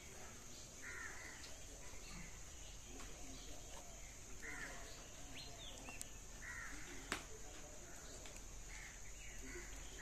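Crows cawing faintly, four or so separate harsh caws a couple of seconds apart.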